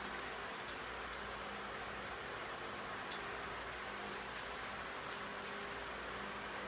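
Steady background hiss with a scattered handful of faint, sharp clicks and light taps, like small metal hardware being handled during assembly.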